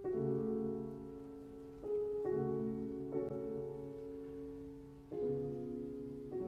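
Background music: slow piano chords, struck about five times and each left to ring and fade.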